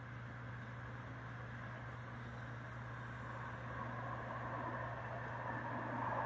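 Distant road traffic: a steady low hum with a rushing noise that grows louder over the last few seconds, as a vehicle approaches.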